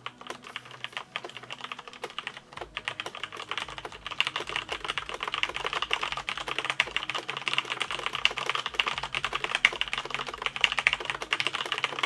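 Typing on a Cougar Attack X3 mechanical keyboard with Cherry MX Brown tactile switches and no O-rings: a crisp clatter of keys bottoming out. It starts as scattered keystrokes and becomes a fast, louder run about four seconds in.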